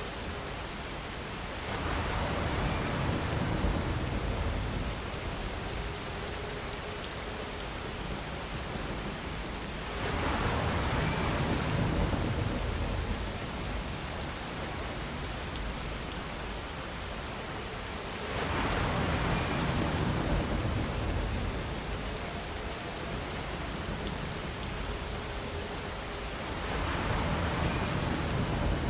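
Steady rain falling, with distant thunder rumbling up and dying away four times, each rumble lasting a few seconds, about eight seconds apart.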